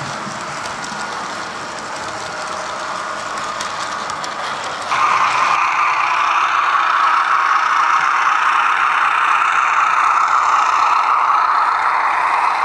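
Model railway running sounds, ending in a DCC sound decoder in a model Class 37 diesel locomotive playing its engine sound through a small onboard speaker as it hauls loaded hopper wagons. The engine sound starts suddenly about five seconds in, louder and steady, with a thin, tinny tone. Before it, a model passenger train runs past more quietly.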